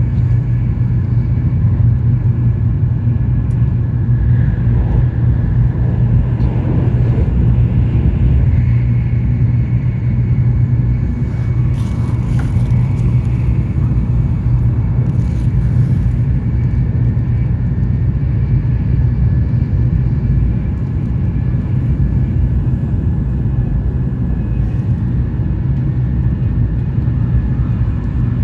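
Running noise of an N700S Shinkansen train heard inside a passenger car: a steady low rumble with faint steady whining tones above it, and a few brief higher rushes around the middle.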